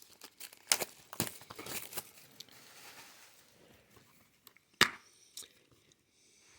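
Plastic shrink-wrap being torn and crinkled off a Blu-ray case, with rustling and crackling clicks, then one sharp click just under five seconds in.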